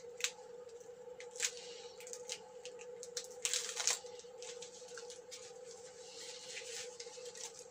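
Hands handling tools and materials at a workbench: scattered clicks and rustles, with a longer tearing-like rustle about three and a half seconds in, over a steady faint hum.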